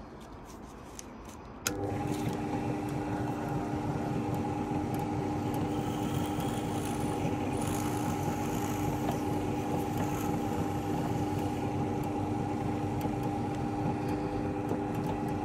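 Axminster pillar drill switched on with a click about two seconds in, its motor and spindle then running with a steady hum. It cuts off right at the end as the stop button is pressed.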